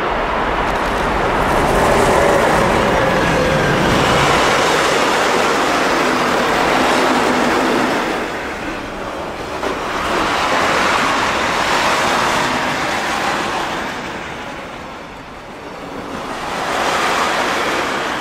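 A mixed freight train passing close by, hauled by an electric locomotive. The locomotive goes by in the first few seconds with a falling hum. Then comes a continuous rolling rush of wagon wheels on the rails, swelling and easing as different wagons pass.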